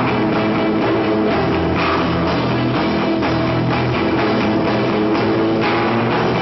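Rock band playing live: guitar over a steady drum-kit beat.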